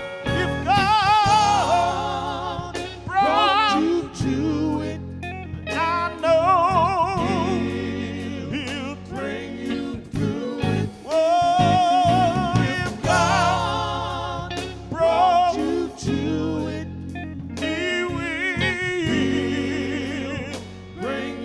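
Gospel group performing live: male voices singing with wide vibrato over electric guitar, electric bass and a drum kit, with a steady beat.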